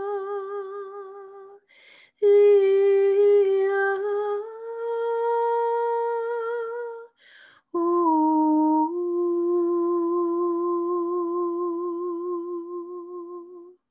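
A woman's voice toning wordless devotional tones with a gentle vibrato, in three long held phrases. The second phrase steps up in pitch partway through, the last settles lower, and there is a short audible breath before each new phrase.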